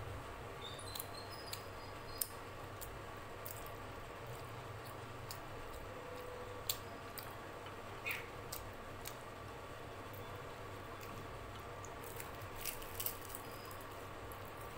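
Close-miked mouth sounds of someone eating luchi and alur dum: chewing with scattered short, sharp wet clicks and lip smacks, a few of them louder, with a cluster of clicks near the end as a luchi is torn by hand. A steady low hum runs underneath.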